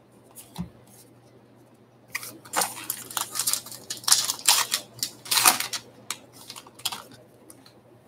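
A light knock, then about five seconds of crinkling and ripping as a foil-wrapped baseball card pack is torn open.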